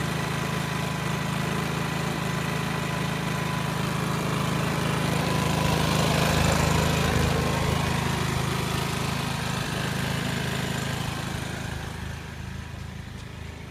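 Briggs & Stratton portable inverter generator running steadily. It gets louder about halfway through and fades near the end.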